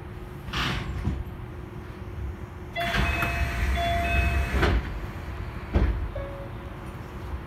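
Osaka Monorail 3000 series train running with a steady low hum. About three seconds in it grows louder for a couple of seconds, with a rumble and a few steady high tones over it, and a short thump comes near six seconds.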